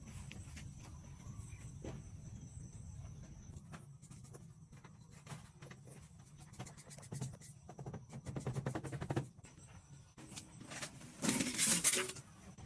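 Crab shell being cracked and eaten: irregular clicks and crackles, a quick run of them about seven to nine seconds in and a louder crunch near the end.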